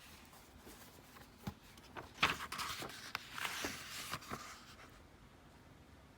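Light clicks and taps with rustling, lasting about three seconds from about one and a half seconds in.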